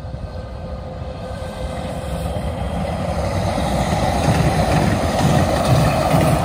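DART electric light-rail train approaching and passing close by, its wheel-on-rail rumble and running noise growing steadily louder as it nears.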